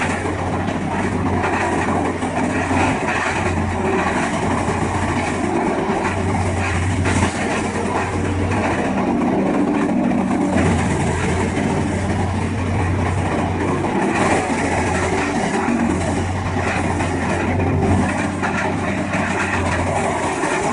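Morbark 1300 tub grinder running under load: a steady heavy diesel drone with a dense, continuous rattling clatter of wood being ground into mulch.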